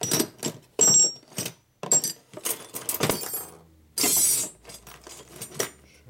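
Small loose metal parts clinking and rattling against each other as a hand rummages through a plastic parts bin, a few clinks ringing briefly. A short plastic-bag rustle comes about four seconds in.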